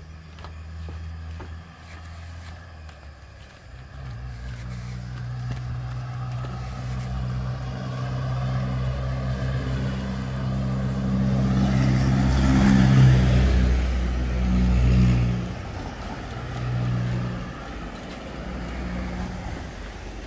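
Motor vehicle engine running, growing louder to a peak about twelve to fifteen seconds in, then dropping away.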